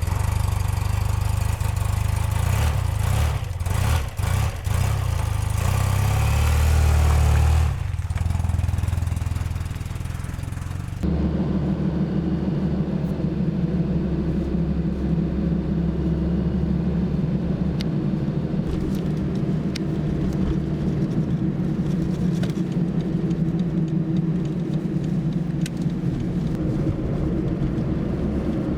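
Motor vehicle running: a loud low rumble, then, after a sudden change about eleven seconds in, a steady low engine hum.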